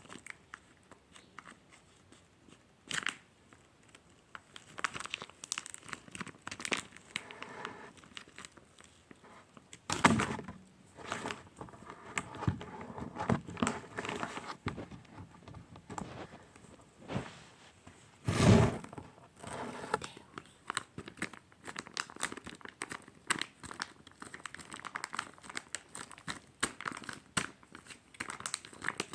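A sticky Taba Squishy toy being squeezed and pulled by hand, making a steady run of small crinkling, crackling and peeling sounds. Two louder thuds come about ten seconds in and again a little past halfway.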